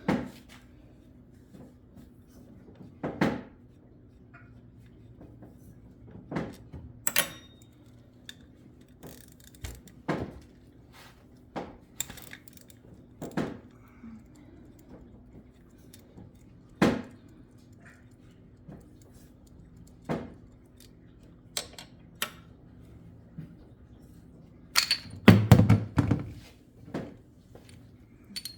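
Scattered metallic clinks and knocks of hand tools and small engine parts being handled while the oil filter is taken out of an ATV engine. A quick run of louder knocks about 25 seconds in.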